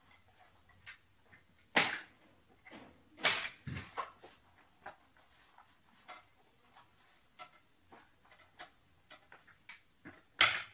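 Scattered light clicks and knocks of small wooden frame pieces and a metal clamp being handled and set in place, with three sharper knocks about two, three and ten seconds in.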